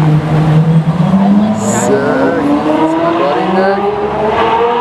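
Ferrari F12berlinetta's V12 running low and steady, then accelerating hard from about a second in, its pitch climbing steadily as the car pulls away.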